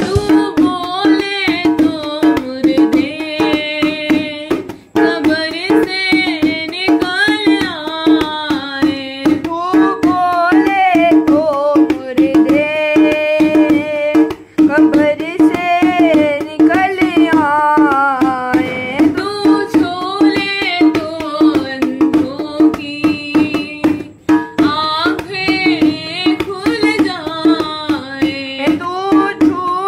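Hindi-Urdu Christian worship song: a solo voice sings a wavering melody over tabla strokes and a steady held note underneath.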